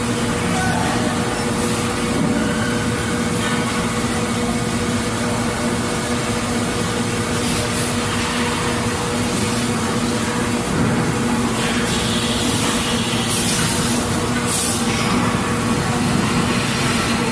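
Factory machinery noise, running steadily with a constant hum, with a few brief hisses about three-quarters of the way through.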